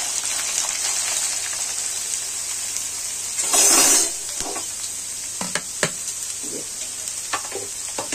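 Sliced bitter gourd sizzling in hot oil in a metal kadhai, with a sudden louder burst of sizzling about three and a half seconds in as more slices are tipped in. In the last few seconds a slotted steel spoon knocks and scrapes against the pan as the slices are stirred.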